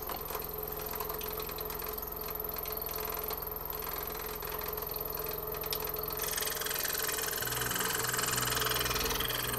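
Scroll saw running steadily as it cuts a hand-cut wooden jigsaw puzzle, a constant motor-and-blade hum; about seven and a half seconds in the low part of the hum shifts.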